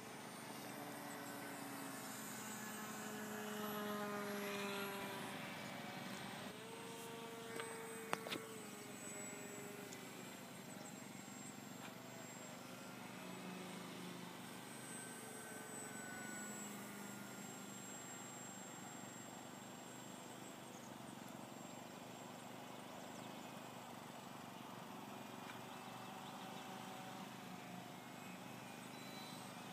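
Faint whine of a radio-controlled electric park-flyer plane's motor and propeller in flight, its pitch gliding up and down. A single sharp tap sounds about eight seconds in.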